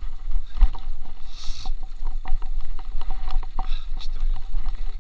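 Mountain bike rolling fast down a rough dirt trail: wind buffeting the action camera's microphone as a loud low rumble, with the bike rattling and knocking over bumps and a brief hiss about a second and a half in.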